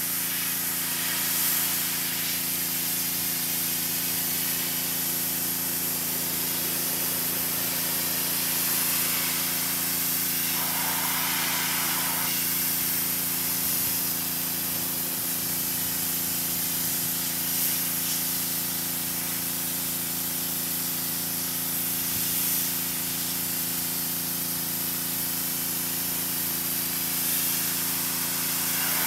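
Pressure washer spraying water: a steady hiss over the constant hum of its pump. The hiss brightens briefly about eleven seconds in.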